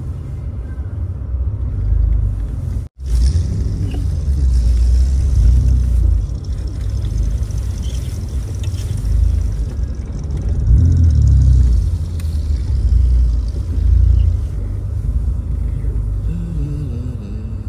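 Holden Commodore VP on the move, with a steady low engine and road rumble that swells and eases as it drives. The sound cuts out for an instant about three seconds in.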